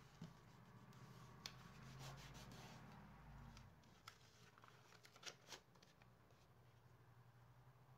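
Hands rubbing and smoothing paper onto a cardboard book cover, a soft faint hiss of paper, then the cover and its decorative paper sheet being handled and turned over, with a few light clicks and taps.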